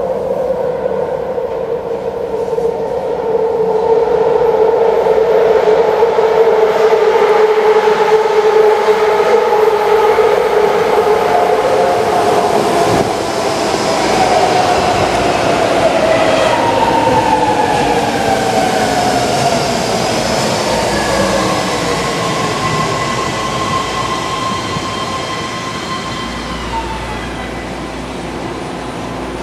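Nine-car BART train pulling into an underground station: a steady whine builds as it approaches and the cars rush past. From about halfway, several whining tones slide down in pitch as it brakes and slows.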